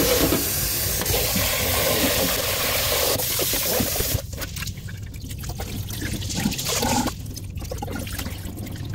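Kitchen faucet running into a stainless-steel pot of rice and black beans, a steady rush of water filling it. About four seconds in the rush drops away, and the rinse water is poured off into the sink.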